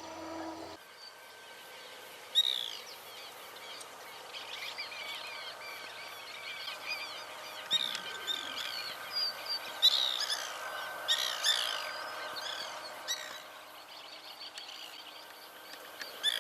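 White woodpeckers calling: many short, down-slurred chirping calls from several birds, overlapping in bursts and busiest around the middle.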